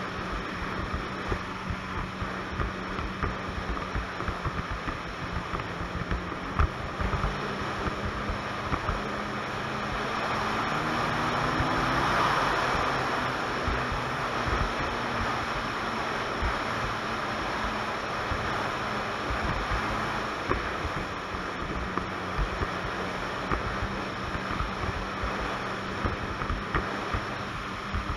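Ski-Doo Expedition 900 ACE snowmobile running at a steady cruise, its three-cylinder four-stroke engine humming under a constant rush of wind and track noise. The engine pitch rises and gets louder about ten seconds in, then settles back to a steady run.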